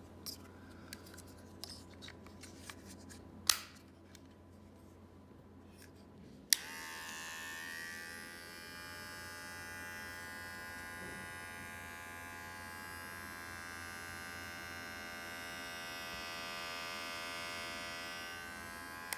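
Light clicks of handling, with one sharp snap about three and a half seconds in; then a switch clicks and the XPERSIS X-1988 cordless metal hair clipper starts running with a steady electric buzz.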